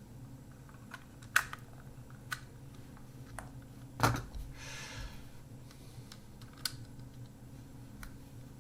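Scattered sharp clicks and taps of small tools and parts being handled on an opened-up film camera, the loudest about four seconds in, followed by a brief rustle.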